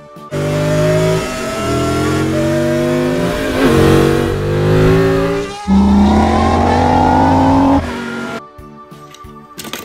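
Race car engine accelerating hard through the gears. Its pitch climbs steadily, drops at each of three upshifts and climbs again, then cuts off, and light music comes in near the end.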